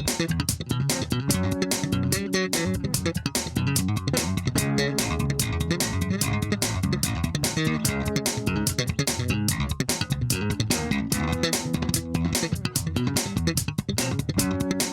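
Background music: a bass and guitar track with a steady drum beat.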